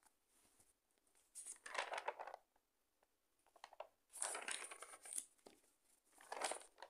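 Paper notebook pages being handled and turned by hand, rustling three times: about a second and a half in, again around four seconds, and just before the end.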